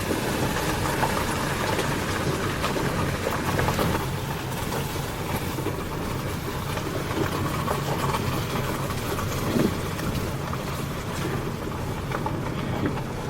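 A car driving along a gravel logging road: steady engine and tyre noise with scattered small clicks.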